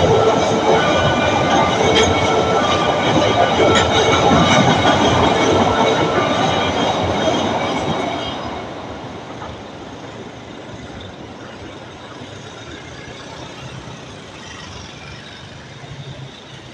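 A train passing over a railway level crossing: loud rumble and clatter of wheels on rails, with steady squealing tones, dying away about eight seconds in to a low, quieter rumble.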